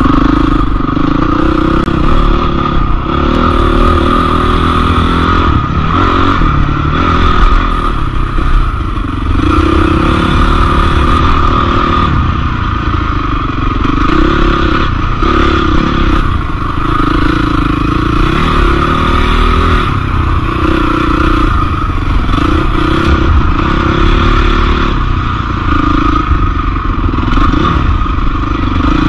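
Off-road motorcycle engine running under way, revving up and down again and again as it is ridden along a trail.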